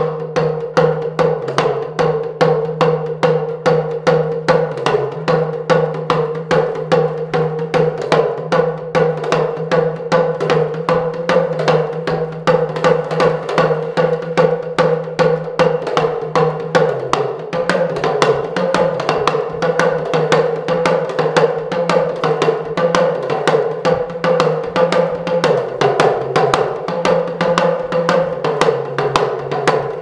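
Hourglass talking drum played solo with a curved stick: a fast, steady run of strokes, about four a second, its low tone stepping up and down in pitch as the player squeezes the drum under his arm.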